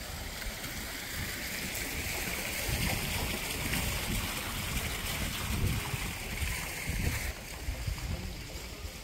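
Water splashing from a pool fountain into its basin as a steady hiss that stops abruptly about three quarters of the way through, with wind rumbling on the microphone throughout.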